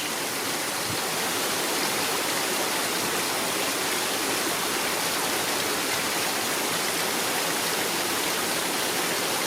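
Heavy thunderstorm rain pouring down in strong wind, a steady dense hiss with no break.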